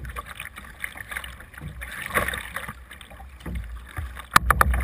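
Kayak paddle strokes: the double-bladed paddle dipping and splashing through choppy water in surges, over a low wind rumble on the microphone. Near the end, a quick run of sharp hits close to the microphone is the loudest sound.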